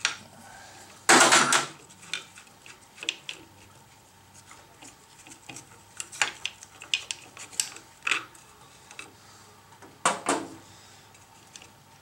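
Metal parts and tools clinking and knocking as the lathe's cover and cable fittings are handled during disassembly. A loud clatter comes about a second in, then scattered sharp clicks, with a double knock near the end.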